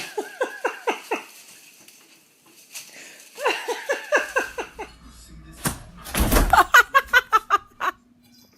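Three bouts of laughter, each a quick run of short falling 'ha-ha' syllables; the last bout near the end is the loudest.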